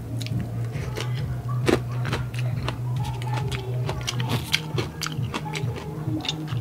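Background music with a steady low bass, under close-miked crunchy chewing of crispy fried food: many sharp, irregular crunches.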